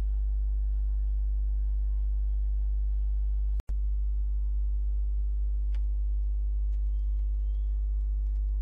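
Steady low electrical hum with a stack of evenly spaced overtones. It cuts out for an instant about three and a half seconds in, and a few faint clicks come near the end.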